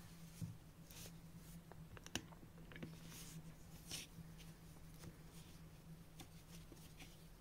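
Faint rustling and scattered light clicks of a crocheted doll tunic being handled and pulled onto a doll, over a steady low hum.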